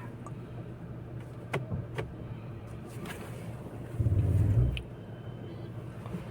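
Mercedes ML 350 CDI's V6 diesel running at low revs with a steady low hum. A few light clicks come through, and there is a brief louder low surge about four seconds in.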